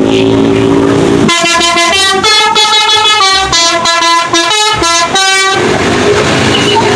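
Bus "telolet" horn: a multi-tone bus air horn playing a quick melody of stepping notes. Before it comes a steady low drone, and after it a noisy rush.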